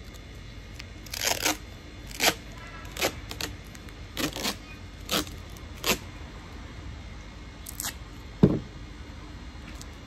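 Duct tape being pulled off the roll in a series of short rips, then a single sharp thump about eight and a half seconds in.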